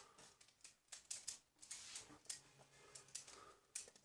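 Pyraminx puzzle being turned by hand, its plastic pieces clicking faintly and irregularly.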